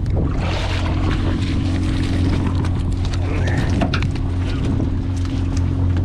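Fishing boat's engine running with a steady low hum under wind and sea noise, with a few light clicks scattered through.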